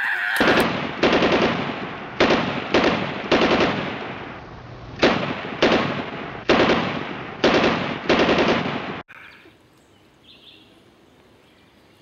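Gunshot sound effect: about ten loud shots at uneven intervals, each with a long echoing tail, cutting off suddenly about nine seconds in. Faint outdoor background follows.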